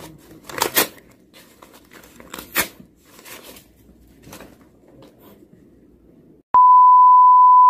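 A sheet of drawing paper torn and crumpled by hand, with several sharp rips, the loudest about a second in and two and a half seconds in. Near the end a loud steady beep tone cuts in and holds.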